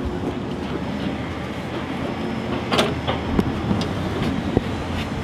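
Bike in a stationary trainer whirring steadily, with a few sharp clicks and knocks from the bike and trainer about halfway through.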